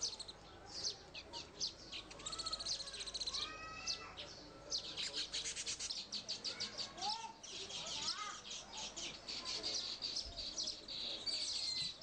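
Baya weavers chirping and chattering: a dense, fast run of high chirps, with a few lower sliding calls around the middle.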